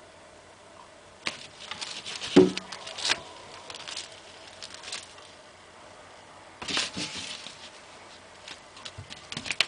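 A cat clawing and biting a foam pool noodle: scratchy rustling of the torn foam in a few short spells, the loudest about two and a half seconds in and another about seven seconds in, with a few light taps near the end.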